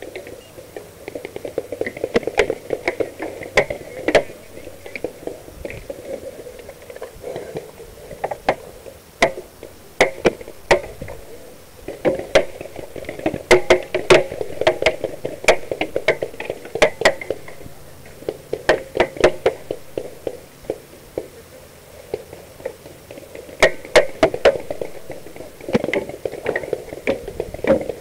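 Paintball markers firing in irregular quick strings of sharp pops, over a low rustling noise.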